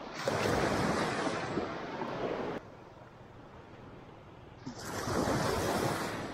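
Wind rushing over the microphone in two strong gusts, the first cutting off sharply about two and a half seconds in and the second rising near the end, with a softer hiss of wind and surf between.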